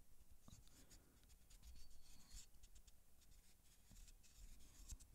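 Faint scratching of a felt-tip marker drawing a line around a golf ball held in a plastic alignment tool, with a few light clicks.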